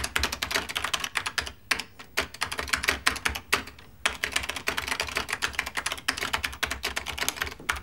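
Typing on a computer keyboard: quick, irregular runs of keystroke clicks broken by short pauses, the longest of about half a second near the middle.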